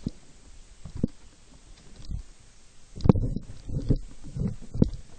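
Irregular dull thumps and knocks, about seven of them, spaced unevenly and loudest in the second half.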